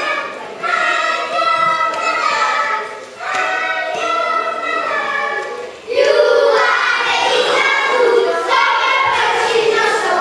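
A group of children singing together in chorus, getting louder about six seconds in.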